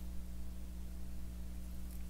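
Room tone: a steady low hum with a faint hiss underneath, and no distinct sound events.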